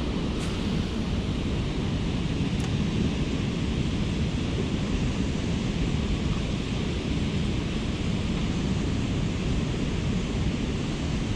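Steady rushing noise of wind buffeting the microphone over a fast-flowing river.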